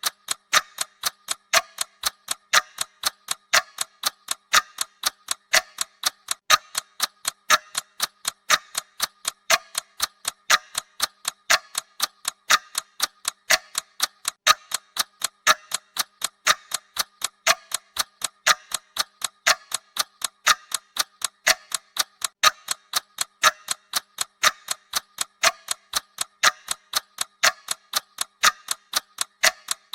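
Clock-style ticking of a countdown timer's sound effect: an even, steady tick about twice a second.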